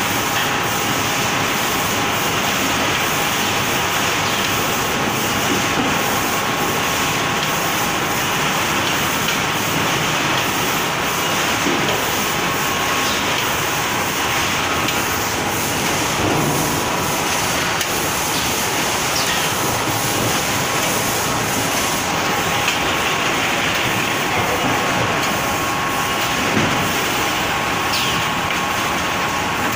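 Robotic case packer for snack bags running: steady machine noise of belt conveyors and bags sliding through the plastic guide chutes, with a constant faint whine.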